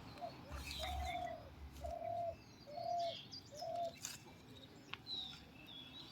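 A bird hooting four times in an even series about a second apart, low flat cooing notes, while small birds chirp briefly in the background.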